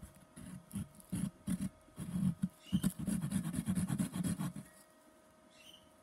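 Fine-toothed hand saw cutting across a small pine lure body in short, rasping strokes, about three a second, that stop a little past halfway through.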